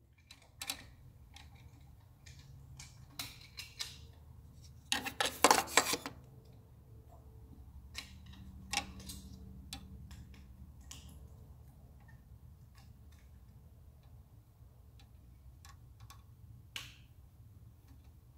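Scattered small clicks and taps of a plastic electronics housing being handled while a thin antenna wire is fed through it, with a louder cluster of clatter about five to six seconds in.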